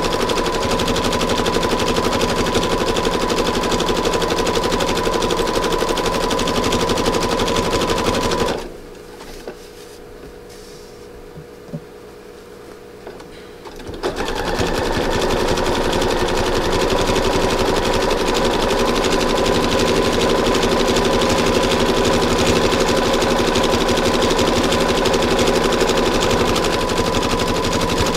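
Sewing machine running fast, stitching fabric-covered rope coils together. It stops about a third of the way in for roughly five seconds, with a couple of small clicks, then starts up again and runs on steadily.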